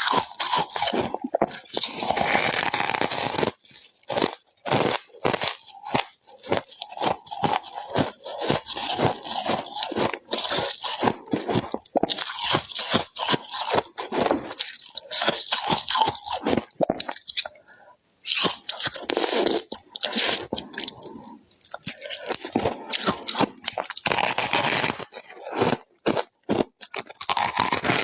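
Close-up crunching and chewing of ice frost, a fast irregular run of crisp crunches. Longer scraping stretches come about two seconds in and again near the end.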